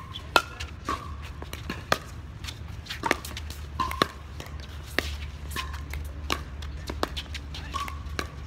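Pickleball rally: sharp pops of paddles striking the plastic ball, roughly one a second, over a steady low hum.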